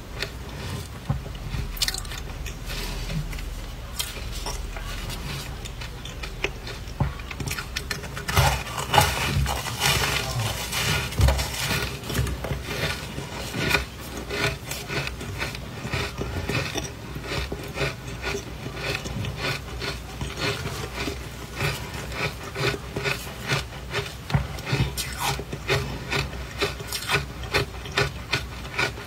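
Close-up crunching and chewing of soft, powdery ice chunks dusted with matcha powder: a cluster of louder crunches about a third of the way in, then steady, regular chewing crunches about two a second.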